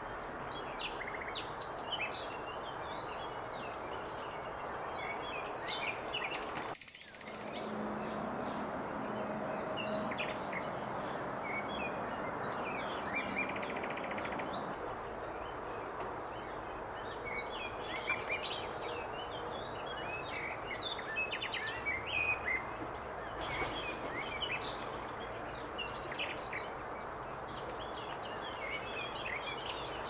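Wild birds chirping and calling in short, scattered notes over a steady background hum of outdoor noise. The sound briefly drops out about seven seconds in.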